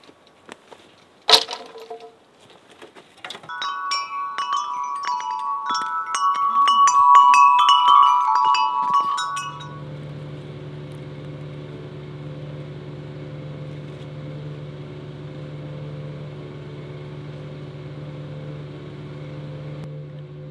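Chimes ringing in a quick run of many overlapping strikes for about six seconds, after a single sharp click. Then, about ten seconds in, a steady low hum with several held tones abruptly takes over.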